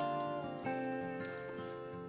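Background music: a chord struck at the start and another a little over half a second in, each ringing and slowly fading.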